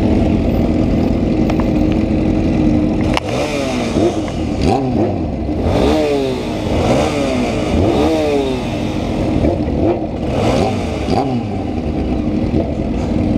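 Yamaha Ténéré 250's single-cylinder engine running steadily, then revved up and down five or six times in a row before settling back to a steady tone near the end.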